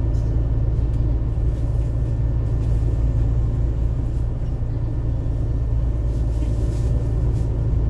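Steady low rumble of a Transjakarta double-decker bus, heard from inside its cabin.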